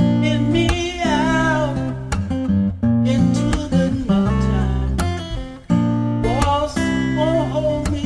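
Instrumental music led by an acoustic guitar, with steady low notes underneath and a melody line that slides between notes about a second in and again near the end.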